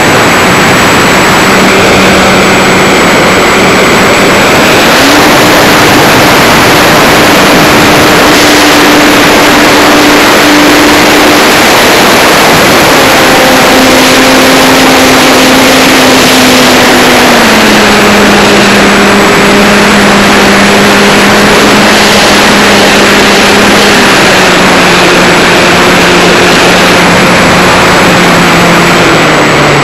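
Onboard sound of an E-flite Wildcat RC warbird in flight: loud wind rush over the camera, with the electric motor and propeller hum under it. The hum steps up in pitch about five seconds in, then drops in steps through the second half as the throttle is changed.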